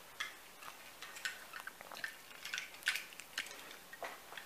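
Faint, scattered small clicks and taps of two die-cast metal toy cars being picked up and handled, knocking lightly against each other in the hand.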